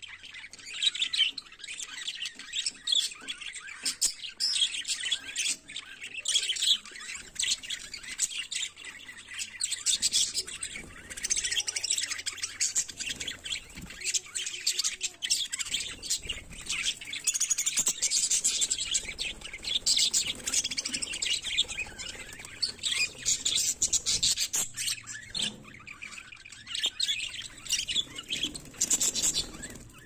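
A flock of budgerigars chattering: many birds calling at once in a continuous stream of short, high chirps and warbles.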